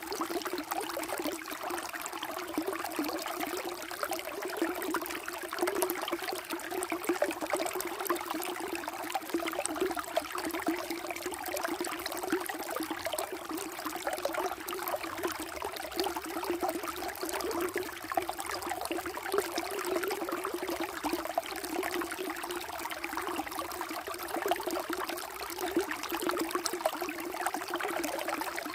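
Flowing water running steadily and without a break.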